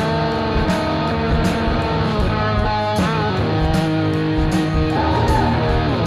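Background rock music led by guitar, with held notes over a steady drum beat.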